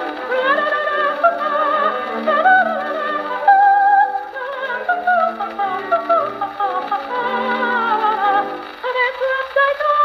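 A 78 rpm shellac record played on a Victor VV 1-90 Victrola: a coloratura soprano singing with a wide vibrato over orchestral accompaniment. The sound has no deep bass and no high treble.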